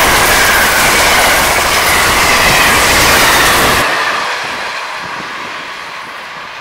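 Amtrak passenger cars passing close at speed: a loud, steady rush of steel wheels on rail with a high whine sliding slowly lower. It drops off sharply about four seconds in as the tail of the train goes by, then fades as the train recedes.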